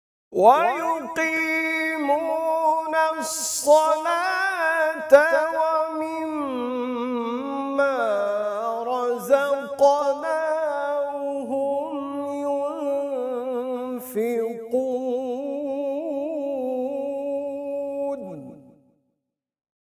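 Quran recitation: a male reciter chanting one long, unaccompanied melodic phrase, his voice wavering through ornamented turns and trills, then stopping on a falling note near the end.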